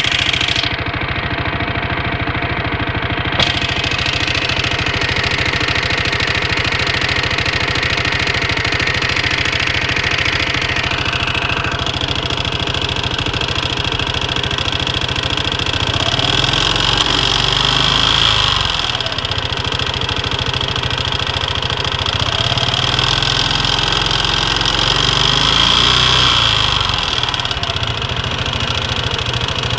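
Aprilia Leonardo 250 scooter engine running steadily, swelling up twice, once about halfway through and again near the end, with a single sharp tick a few seconds in. The owner calls it a strange noise coming from the scooter.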